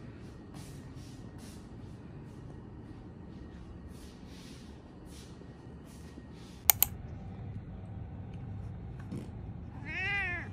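A cat meows once near the end, a single short call rising and then falling in pitch. Before it, two sharp clicks close together about two-thirds of the way through, over faint room noise.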